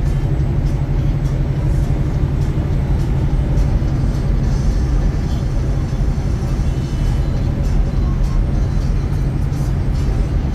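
Steady drone of a semi-truck's diesel engine and road noise inside the cab while cruising at about 70 mph on the highway.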